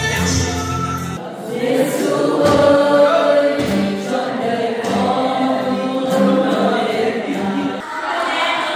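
Music: a choir singing, with several voices together.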